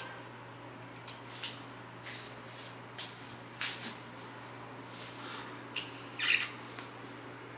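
Rustling and handling noises: a series of short scrapes and rubs, irregularly spaced, the loudest about six seconds in, over a steady low hum.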